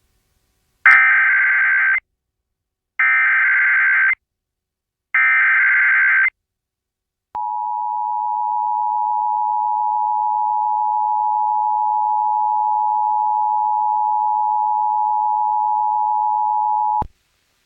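Emergency Alert System header: three one-second bursts of warbling digital data tones (the SAME header), then the steady two-tone EAS attention signal held for about ten seconds. It is the opening of an emergency alert, here a tornado warning.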